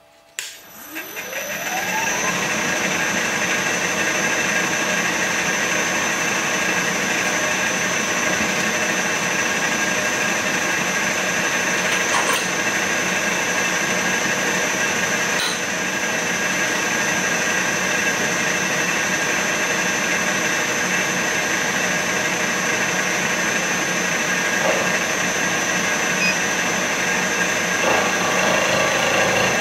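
Vertical milling machine's spindle switched on and spinning up, rising in pitch over the first couple of seconds, then running steadily with a high whine while the end mill turns.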